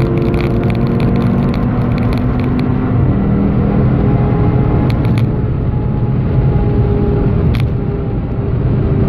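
Audi TT RS's turbocharged 2.5-litre inline-five pulling hard at full throttle at around 5,000 to 5,500 rpm, rising in pitch through fourth gear with one upshift into fifth, heard from inside the cabin over wind and road noise.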